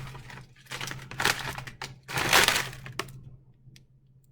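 Plastic food packaging crinkling and rattling as it is handled, in two stretches, followed by a few light clicks near the end, over a faint steady low hum.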